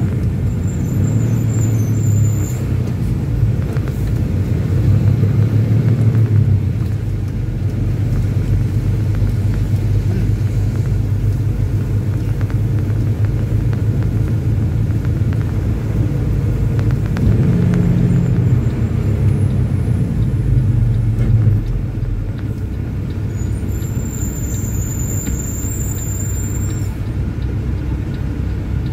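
Semi-truck engine and road noise heard from inside the cab while driving, a steady low drone. Partway through the engine note briefly rises; a few seconds later the drone drops and stays quieter as the truck slows.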